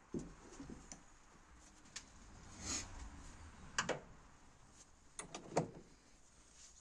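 A few faint, sharp clicks and knocks, about half a dozen, scattered irregularly, with a short rustle near the middle.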